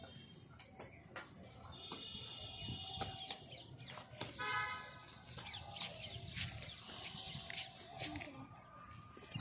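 Faint chicken calls: a drawn-out call about two seconds in and a shorter one about four and a half seconds in, with scattered short sounds between.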